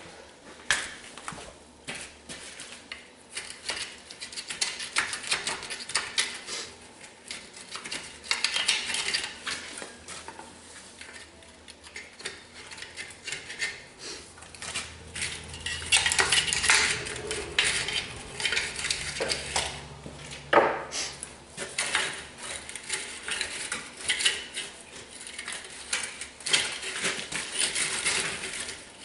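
Irregular metallic clinking, clanking and scraping of hand work on a Bobcat 763 skid steer's rubber track and wheels, getting busier and louder about halfway through.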